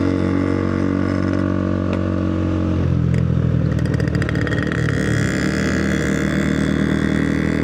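Motorcycle engine running while riding, holding a steady note that changes about three seconds in, with a brief rattle of quick clicks just after.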